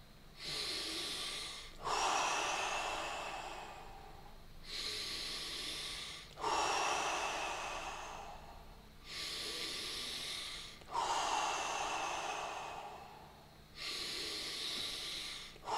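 A man taking slow, deep, audible breaths in and out during a guided breathing exercise, about three and a half breaths, each inhale and exhale lasting roughly two seconds with a short pause between them.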